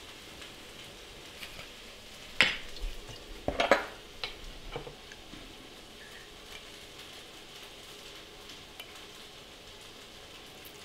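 A few light knocks and clatters of jars and a bottle being handled on a counter, clustered about two to five seconds in. Under them, a faint steady sizzle of onions frying in a pan.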